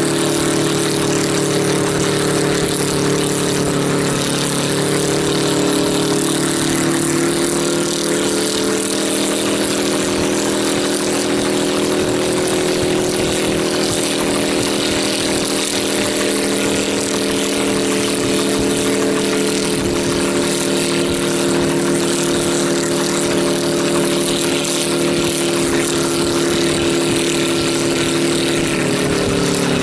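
Engine of a homemade helicopter running steadily, with a hiss of rushing air over it; its pitch rises slightly about seven seconds in and falls away near the end.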